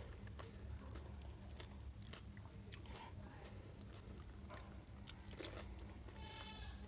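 Close-up crunching and chewing as crisp, hollow pani puri shells are bitten and eaten: irregular sharp crackles and wet mouth sounds over a low steady hum. Near the end a brief animal call sounds once.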